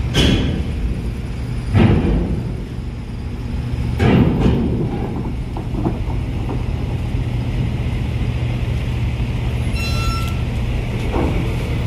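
A large coach's diesel engine running steadily at low speed as the bus creeps forward, with three sudden sharp bursts from its air brakes in the first four seconds. A short high beep about ten seconds in.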